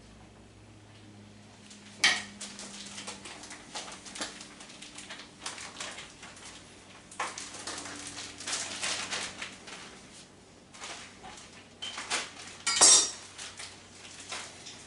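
Cooking utensils and cookware clinking and scraping in irregular spells, with a sharp clank about two seconds in and another loud one near the end.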